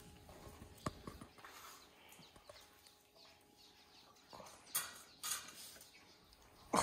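Baby African elephant drinking milk formula from a hand-held bottle: faint sucking with a few sharp clicks about a second in and two short louder bursts of sound around five seconds in.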